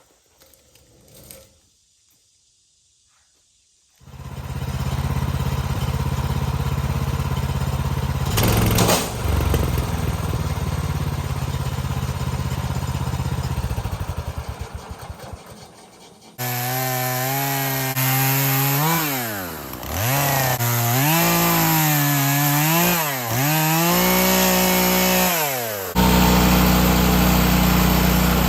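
Portable bandsaw sawmill's gas engine starting up about four seconds in and running steadily. Later it is sawing through a log, with the engine speed sagging and picking up again several times under the load of the cut.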